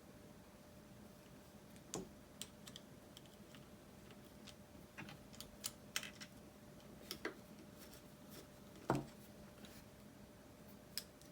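Irregular light clicks and taps of small plastic parts and screws being handled while fitting a thumb-steering adapter to an RC transmitter, with one louder knock about nine seconds in. A faint steady hum runs underneath.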